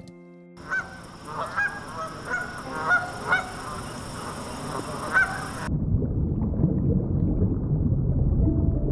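Geese honking: a run of about eight short, sharp calls over roughly five seconds. A little over halfway through it cuts to a low, noisy hiss-like sound with no clear calls.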